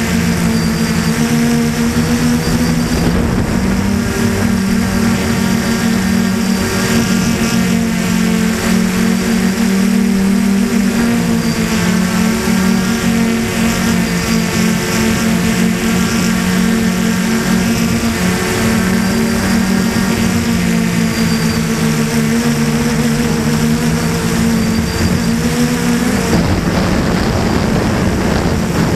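DJI Flamewheel 450 quadcopter's electric motors and propellers buzzing in flight, picked up by the camera mounted on the craft, the pitch wavering as the throttle shifts. About 26 seconds in the motor tone drops out and a rush of wind noise takes over.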